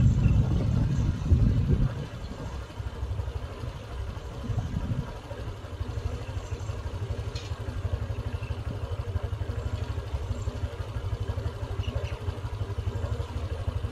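Tractor engine running steadily with a low, pulsing rumble, heavier for the first two seconds and then settling to an even beat.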